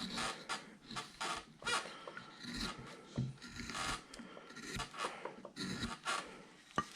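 A hand carving tool shaving and scraping wood in a series of short, irregular strokes, cleaning bandsaw marks off a roughed-out figure.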